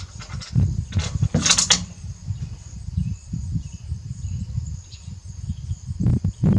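Rifle bolt being worked between shots: sharp metallic clicks and a slide about a second in, and more clicks near the end, over a steady low rumble.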